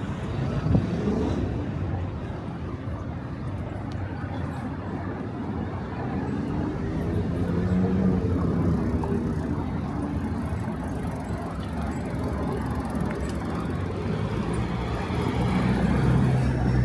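City street traffic: cars running past in a steady wash of road noise. One vehicle's engine note rises and falls as it goes by about halfway through, and traffic grows louder near the end.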